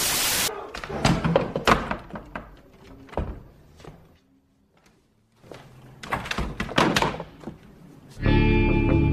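A hammer knocking a board down onto a wooden floor to brace a chair: two runs of sharp blows with a short pause between. It opens with a brief hiss of TV static, and music starts near the end.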